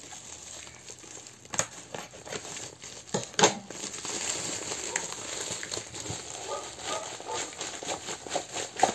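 Plastic packaging crinkling and rustling in the hands as tarot deck tins are unwrapped from their protective bags, with scattered small clicks and one sharper knock about three and a half seconds in.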